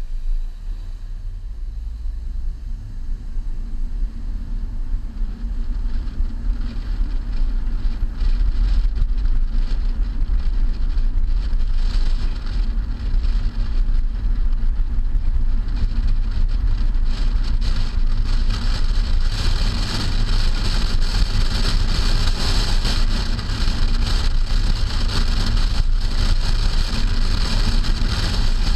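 Wind rushing over a camera mounted on the trunk of a moving car, with a low rumble of road and tyre noise. It grows louder over the first eight seconds or so as the car picks up speed, then stays steady.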